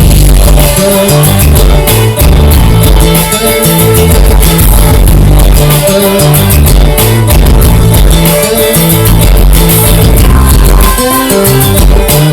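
Loud music with heavy bass and a steady beat, in a Latin, salsa-like style, played through speakers.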